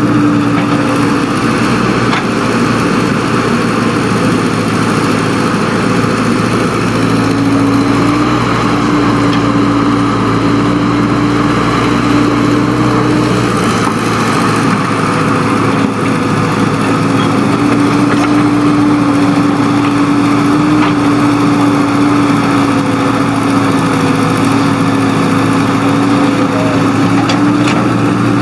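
Engine of earthmoving machinery running steadily, with a droning tone that fades and returns a few times.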